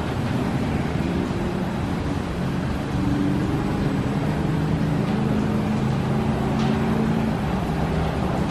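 Ryko SoftGloss XS 2 rollover car wash running: its spinning foam side and top brushes scrub a car under water spray, over a steady mechanical hum. It grows a little louder about three seconds in.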